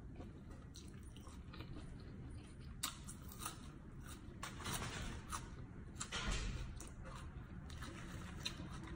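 A person chewing a mouthful of fresh raw herbs and greens, with faint crisp crunching and wet mouth clicks starting about three seconds in and busiest around the middle.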